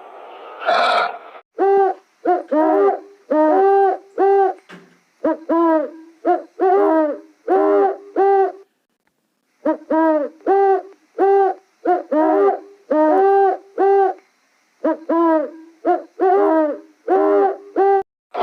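An animal calling over and over: short clear calls, each rising then falling in pitch, in quick runs of two to four with brief pauses between the runs.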